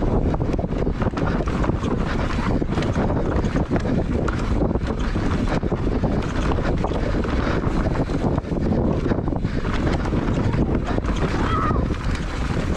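Wind buffeting the microphone over the rumble of a Santa Cruz Nomad mountain bike's knobbly tyres on a dirt trail, with frequent knocks and rattles as the bike runs over roots and stones.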